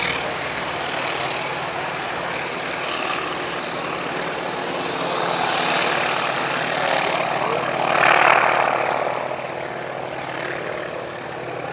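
North American T-28S Fennec's supercharged Wright R-1820 nine-cylinder radial engine and propeller under power as the aircraft climbs away, swelling to its loudest about eight seconds in, then fading.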